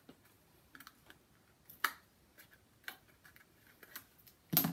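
Scattered light clicks and taps of small kraft-cardboard boxes being handled over a board, with one louder knock near the end.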